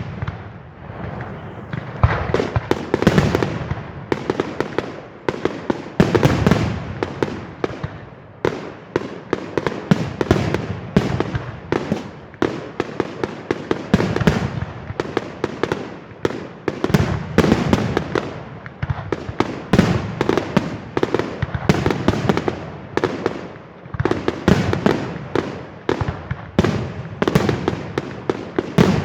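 Fireworks display going off continuously: a rapid, dense stream of bangs and crackles, with louder clusters of reports every second or two.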